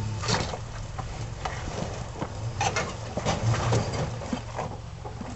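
Pickup truck crawling over boulders: its engine runs low and steady under a string of sharp knocks and crunches from the tyres climbing over rocks.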